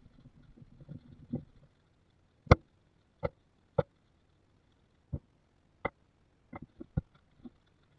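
Metal parts of a Stanley No. 45 combination plane being wiped with a paper shop towel and set down on a wooden workbench: soft towel rustling at first, then about ten sharp, irregular knocks and clinks of the metal against the bench and against other parts. The loudest knock comes about two and a half seconds in.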